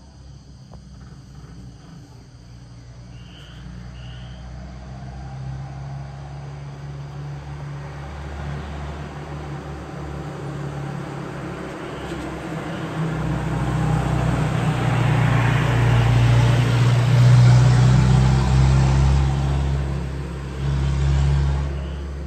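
Jeepney's diesel engine running as it drives up the road toward the listener, with a truck behind it. The low engine sound grows steadily louder and is loudest about three quarters of the way through.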